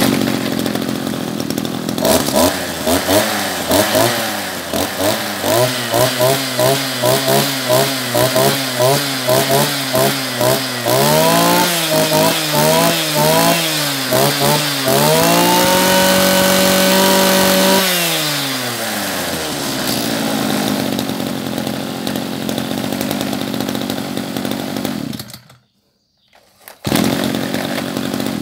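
Maruyama MB326SB brush cutter engine running, its throttle blipped in quick repeated revs, about one and a half a second, then revved higher and held at high speed for a few seconds. It drops back to an even idle and cuts out, then runs briefly once more near the end.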